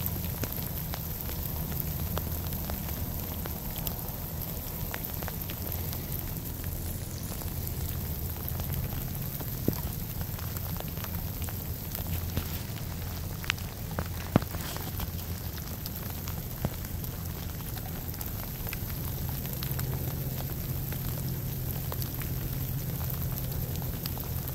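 Steady hard rain falling, with a few sharper drop hits ticking out above it.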